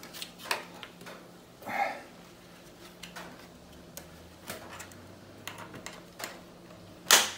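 Scattered small clicks and creaks of plastic as the chrome trim strip's pins are pushed out of a VW Mk5 front grille by hand, with one loud sharp crack just before the end as a pin pops free of its clip. It is a cracking noise, but nothing breaks.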